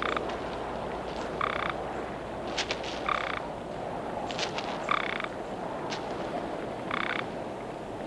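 Golden toads calling at a breeding pool: five short, pulsed calls, one every one and a half to two seconds, over a steady background hiss.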